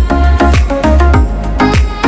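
Background music with a steady drum beat of about two strokes a second under held melodic notes.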